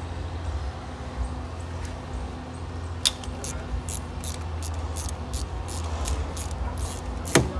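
Hand socket ratchet clicking in quick, even strokes, about four clicks a second, as it works an Allen bolt on the A/C pipe; a single sharp clunk near the end.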